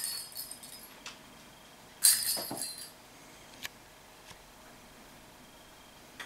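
A small pink cat toy ball bounces and rolls on a wooden floor, jingling and clattering. The loudest jingle comes about two seconds in and lasts under a second, followed by a few light clicks.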